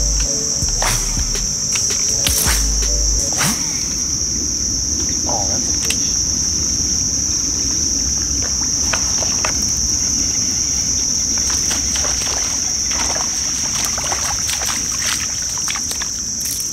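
Steady high-pitched drone of a summer insect chorus, with scattered short clicks and knocks over a low rumble.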